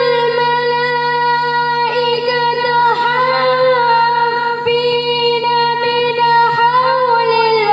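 A young girl reciting the Quran in melodic tajweed chant over a microphone, drawing out one long, high note with small wavers and ornaments, then sliding lower near the end.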